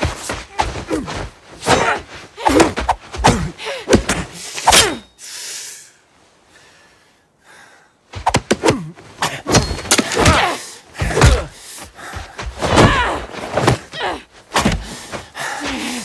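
Hand-to-hand fight sound effects from a film: a fast run of punches, body blows and thuds mixed with grunts and strained cries, broken by a quiet lull of about three seconds midway before the blows and grunts resume.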